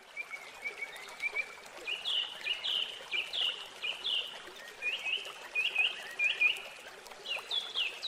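A songbird singing: quick runs of short chirps, each sweeping downward, repeated phrase after phrase over a steady faint hiss.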